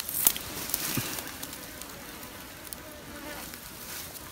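Flies buzzing around a freshly dead wild boar's carcass over a steady high insect hiss, with a few light clicks.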